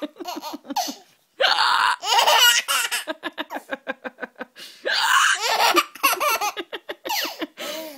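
A nine-month-old baby laughing in several bouts of quick, rhythmic belly-laugh chuckles, each bout opening with a louder burst.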